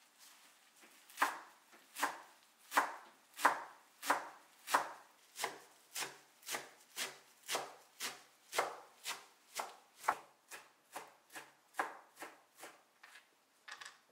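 Chef's knife chopping a pile of fresh herbs on a wooden cutting board: a run of crisp, even chops starting about a second in, about one and a half a second at first and quickening to about two and a half a second near the end.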